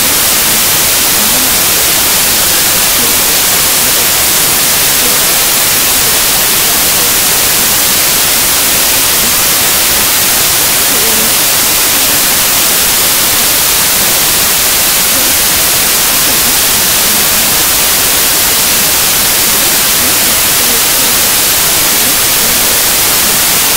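Loud, steady static hiss: white noise filling the sound track, with no speech or music.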